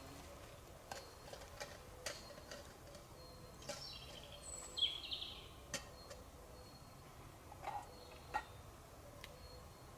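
Quiet forest ambience with scattered small clicks and ticks, and a brief high bird chirp about five seconds in.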